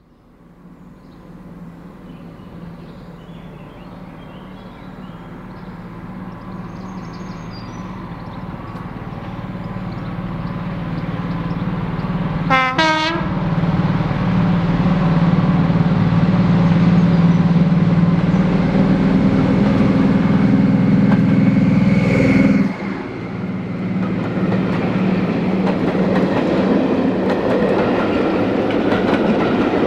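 Diesel locomotive approaching, its engine note growing steadily louder, with one short horn blast about halfway through. About three quarters of the way in, the locomotive passes close by and the sound drops suddenly. The clickety-clack of train wheels over the rail joints follows as the train goes past.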